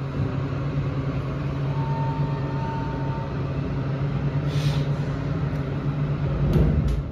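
Elevator car travelling down its shaft: a steady low hum with rumble throughout. A faint thin tone sounds for about a second and a half about two seconds in, and a few clicks with a swell of low rumble come near the end.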